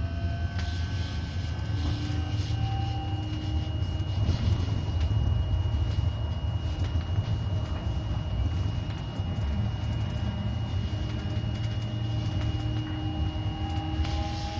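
Stadler Citylink Class 399 tram-train running along mainline track, heard from the driver's cab: a steady low rumble of wheels on rail, with a thin steady high whine and slowly rising whining tones near the start and again toward the end.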